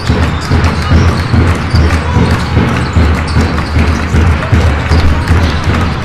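Basketball game in play: a ball bouncing on the hardwood court, with repeated short thuds, over the general din of the sports hall.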